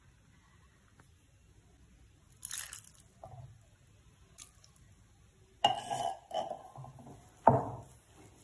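A few knocks and clinks of a plastic measuring jug against a ceramic mixing bowl while cold water is added to crumbly flour-and-butter pastry mix, with short rustles of the crumbs. A cluster of knocks comes a little past halfway, and the sharpest single knock comes near the end.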